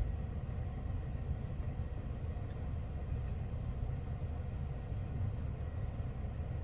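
A McNeilus rear-loader garbage truck's diesel engine running steadily while the hydraulic packer cycles through the rear hopper.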